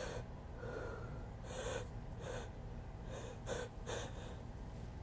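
A person taking a series of short, faint gasping breaths in through the nose and mouth, about seven in four seconds: the hitching breaths of a sneeze building up.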